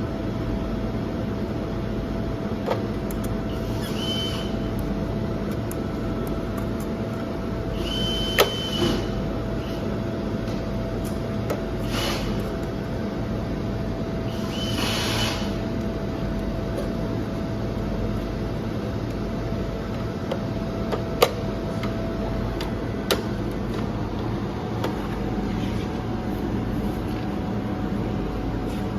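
MIG welding equipment running with a steady buzzing hum and a constant mid-pitched tone. Four brief hisses and a few sharp clicks break through it.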